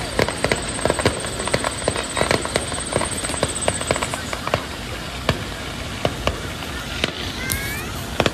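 Aerial fireworks display: a rapid, irregular string of sharp bangs and crackles, several a second, over a steady rumble.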